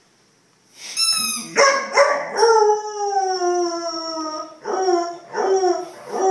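Vizsla puppy howling: after a short, high-pitched cry about a second in, one long howl that slides slowly down in pitch, followed by three shorter howls.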